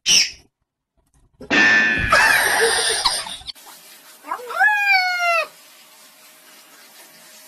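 A wet cat being bathed lets out one long yowl, about halfway through, that rises and then falls in pitch. Before it comes a loud, noisy jumble of sound lasting about two seconds.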